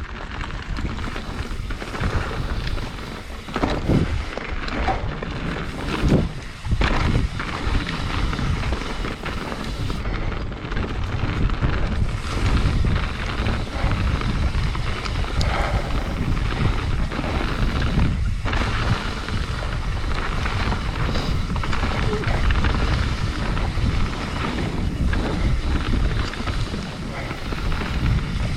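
Wind rushing over the camera microphone and mountain bike tyres rolling fast over a dirt trail, with a few sharp knocks from the bike over rough ground about 4 and 6 seconds in.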